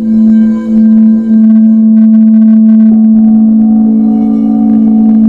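Crystal Tones Alchemy crystal singing bowls ringing together in a loud, sustained low tone with higher tones layered over it. The tone wavers for the first second or so, then holds steady, and another bowl's note joins about three seconds in.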